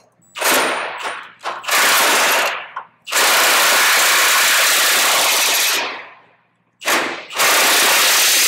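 Half-inch impact wrench with a 1-1/8 inch socket hammering the APU mounting-bracket bolts tight against the truck's frame rail. It goes in several bursts: short ones in the first two seconds, a long run of nearly three seconds in the middle, and another near the end.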